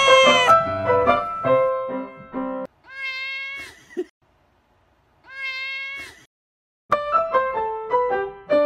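Cat meows over piano music: a long meow falling in pitch ends about half a second in, piano notes follow, then two identical meows a little over two seconds apart with silence around them, and piano music starts again near the end.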